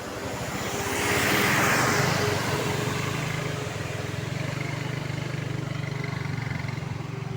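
A bus passes close by: a rush of engine and road noise swells about a second in and fades over the next two seconds. After that, an engine keeps up a steady low drone. No telolet horn sounds.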